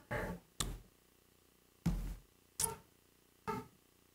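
A man's short breaths and sniffs close to a microphone: about six brief sounds, each a fraction of a second long, with pauses of up to a second between them.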